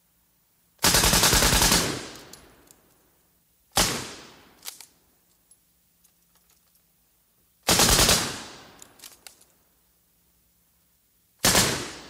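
Machine gun firing four bursts of automatic fire: a longer burst of about a second, then three shorter bursts, each dying away in an echoing tail. A few lighter sharp clicks follow the second and third bursts.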